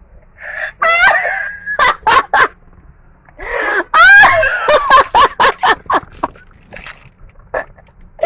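High-pitched screaming and laughing in two bouts, the first about a second in and a longer one from about three and a half seconds in, broken into quick pulses.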